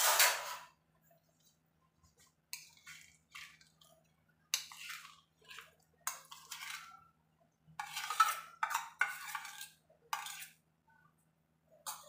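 Steel spoon scraping and clinking against a small steel bowl as soft khoya is scooped out onto a steel plate, in a string of short separate scrapes, the loudest at the start. A faint steady low hum runs underneath.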